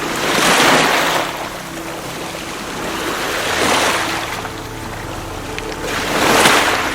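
Sea waves washing against rocks: three surges, about three seconds apart, each rushing in and falling away. Soft, steady background music plays underneath.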